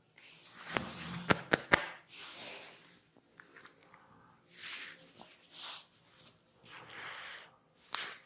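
Hands working on a head in a head massage: rustling swells of rubbing and scratching through the hair and scalp. A quick run of four sharp clicks comes about a second in, and another sharp click comes near the end.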